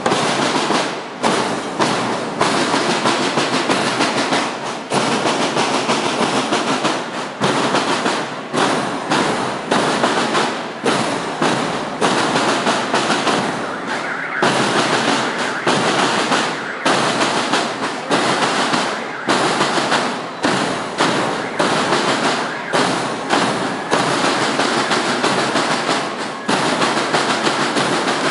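School marching band of snare drums and bugles playing loudly and continuously, the drumming breaking off and restarting every second or so.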